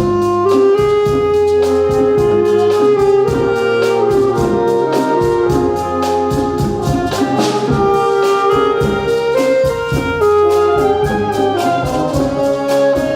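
Ensemble music led by brass instruments, with sustained melodic notes in several parts over a quick, steady beat.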